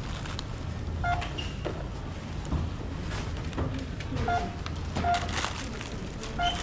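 Short electronic beeps, four at irregular intervals, over a steady background hum and faint clatter.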